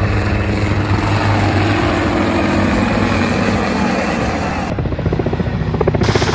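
Military helicopter's engines and rotor, a steady loud beat while it hovers with a water bucket slung below. A little under five seconds in the sound changes abruptly to a quieter, evenly pulsing rotor beat.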